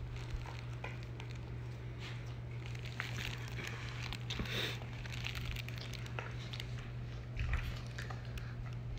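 Soft rustling and scattered light clicks of a hand rubbing a Pembroke Welsh corgi puppy on a fleece blanket, over a steady low hum.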